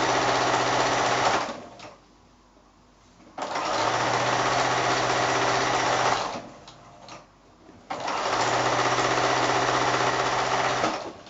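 Electric domestic sewing machine stitching a seam through quilt fabric in three runs, each stopping abruptly: about a second and a half in, about six seconds in, and near the end, with short quiet pauses between runs.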